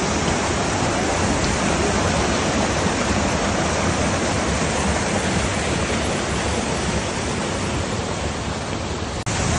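Water rushing steadily over a rocky cascade, a loud, even sound with no let-up; it drops out for a split second near the end.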